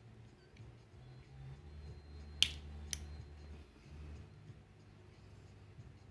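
Two sharp plastic clicks about half a second apart, the first the louder, as a small flat screwdriver pries apart the plastic casing of a USB flash drive, over faint handling rumble.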